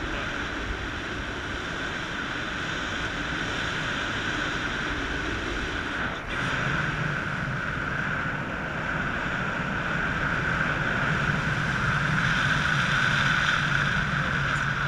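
Steady wind rushing over an action camera's microphone as the paraglider flies through the air, a little louder near the end.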